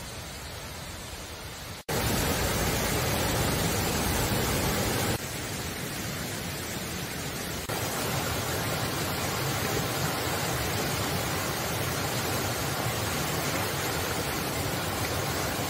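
Rushing water of a rocky mountain stream cascading over small falls. A quieter hiss for about the first two seconds, then the water noise starts suddenly and much louder, shifting abruptly in level twice more.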